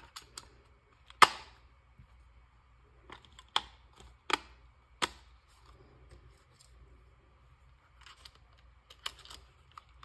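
Sharp, separate plastic clicks and snaps from a handheld RC transmitter as its AA batteries and battery cover are fitted. The loudest click comes about a second in, three more follow between about three and a half and five seconds, and a few fainter ones come near the end.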